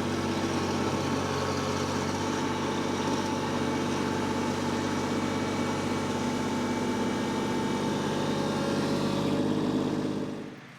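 Kubota L3301 compact tractor's three-cylinder diesel engine running steadily while it works its loader bucket, cutting in sharply at the start and fading away near the end.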